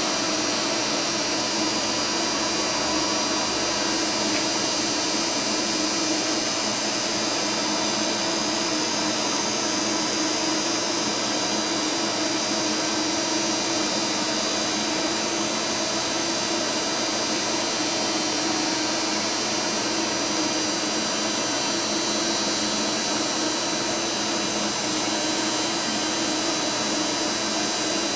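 Makino U86 wire EDM machine running: a steady mechanical hiss and hum with several faint high whining tones, unchanging throughout.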